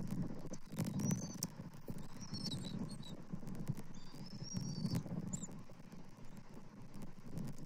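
A few short, high, thin bird chirps, some falling slightly in pitch, in about four groups over a low, uneven rumble with faint clicks.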